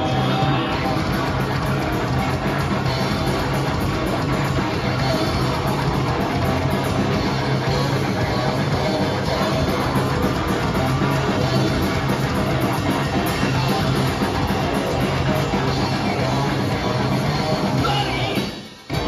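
A rock band playing live: distorted electric guitar and bass guitar over drums, loud and dense, breaking off sharply for a moment near the end.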